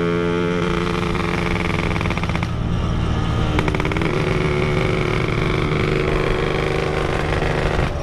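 Yamaha RX King's two-stroke single-cylinder engine, really noisy, running steadily while riding, with a slight change in revs about four seconds in.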